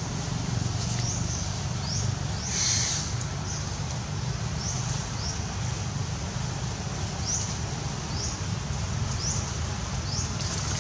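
A bird chirping, short high notes about once a second, with one louder, harsher call about three seconds in, over a steady low hum.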